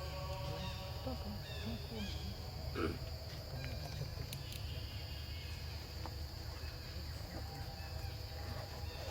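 Steady high-pitched insect drone over a low rumble of outdoor background noise, with one brief louder sound about three seconds in.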